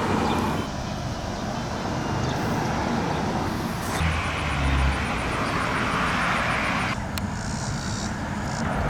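Steady rumble of vehicles and traffic, growing louder with a rushing hiss and low hum for a few seconds in the middle.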